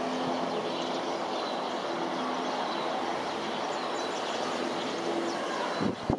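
Boeing KC-767 tanker's jet engines during a touch-and-go, heard from afar as a steady rush with a few low steady tones, which cuts off suddenly near the end.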